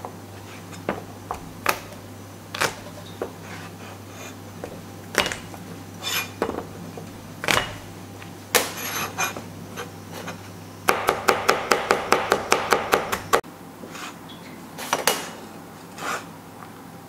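Chinese cleaver chopping garlic and ginger on a plastic cutting board: scattered single knocks of the blade, then a quick even run of chops, about five a second, about eleven seconds in, then a few more knocks.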